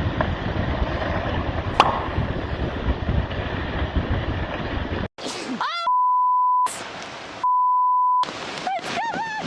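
A steady rushing noise for about five seconds, then after a sudden cut a person shouting, interrupted twice by a long steady censor bleep.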